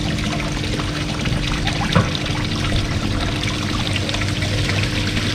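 Waterfall spout pouring steadily into a koi pond, the surface churning with air bubbles from the aerator, which has just been switched back on with fresh filter cotton. A steady low hum runs underneath, and there is a brief knock about two seconds in.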